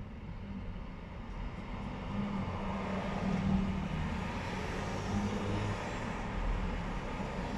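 Car engine and road rumble heard from inside a car moving slowly through city traffic, swelling slightly a few seconds in.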